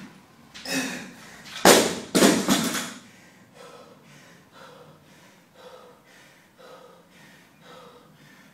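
80 kg barbell with black rubber bumper plates dropped from overhead onto a floor mat, hitting about two seconds in and bouncing once more. Then heavy panting, about one breath a second.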